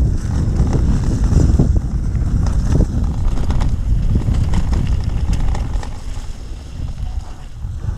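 Mountain bike riding over rough off-road trail: wind buffeting the microphone over low tyre rumble, with scattered rattles and knocks from the bike. It eases off somewhat near the end.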